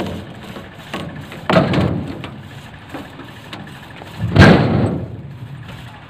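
A heavy felled semal (silk-cotton) tree trunk being dragged by a wire rope up onto a tractor trolley's bed, with two heavy thuds about three seconds apart as it shifts and lands, over a tractor engine running.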